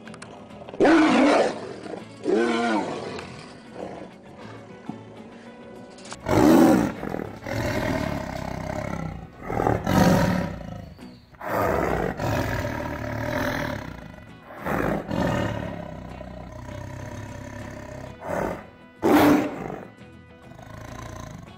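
Tigers roaring again and again: about a dozen loud, rough calls, each lasting a second or so, with music underneath.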